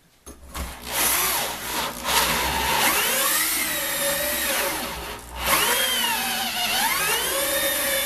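Hole saw on a geared Ryobi drill cutting into a metal-clad door, a grinding cut with a wavering squeal whose pitch rises and falls. It eases off briefly about five seconds in, then bites again.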